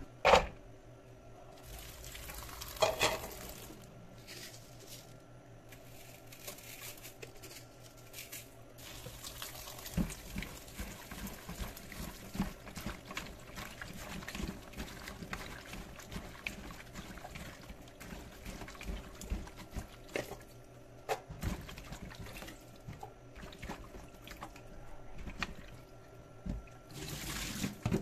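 A cleaver strikes a wooden chopping block once right at the start. Then hands slosh and rub sliced bitter gourd in a bowl of water, with steady splashing and many small drips and clicks.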